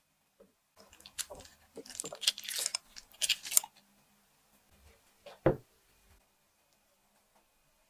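Dark chocolate chips rattling and scraping in a glass bowl as it is handled and stirred: a dense run of crisp clicks for about three seconds. A single sharp knock comes about five and a half seconds in.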